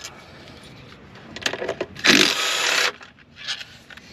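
Cordless impact driver running in one short burst, under a second long, about two seconds in, backing out a throttle-body bolt; a few light clicks of the tool and hardware come just before and after it.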